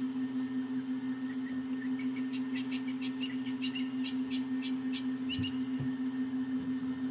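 A bird calling a run of short, sharp, high notes, about three to four a second for some four seconds, over a steady low hum.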